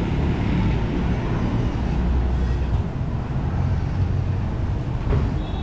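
Busy city road traffic: vehicle engines running close by as a steady low rumble, with a slight dip about three seconds in.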